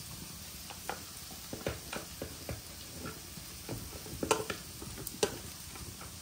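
A cooking utensil knocking and scraping against a pot as the food is stirred, irregular clinks with a cluster of louder ones about four seconds in, over a faint steady hiss of cooking.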